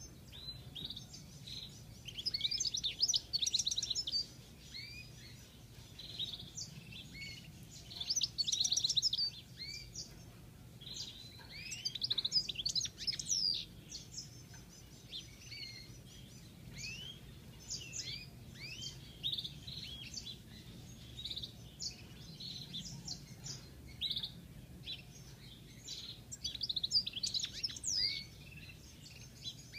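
European goldfinch singing: rapid, high twittering phrases in bursts every few seconds, with scattered single call notes between them.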